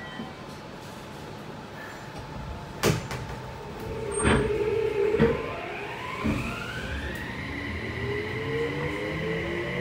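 Mitsubishi IGBT-VVVF inverter drive of a Toei 6300-series subway train starting off from a stop. After a few knocks in the first half, the inverter whine glides upward and settles into a steady high tone about seven seconds in. It is then joined by motor tones that keep rising as the train gathers speed.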